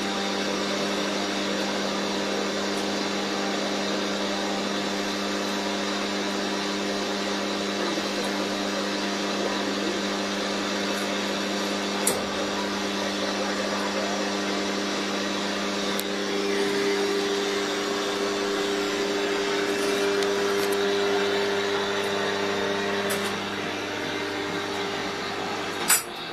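Electric motor driving the chain-driven spit of a homemade spit-roast grill, running with a steady hum. A few sharp clicks sound over it, the clearest about halfway through and just before the end.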